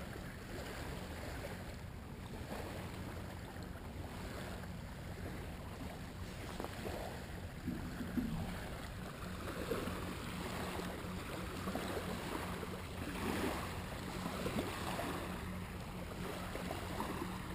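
Seaside ambience: small waves lapping on a sandy beach and wind on the microphone, an even haze with a steady low hum underneath.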